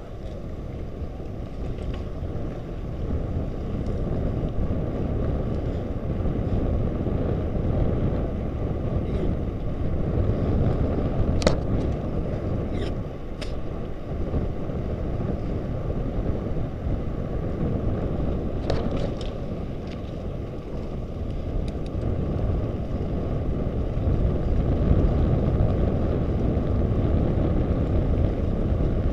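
Wind rushing over the microphone of a camera on a moving bicycle: a steady low rumble, with a few sharp clicks around the middle.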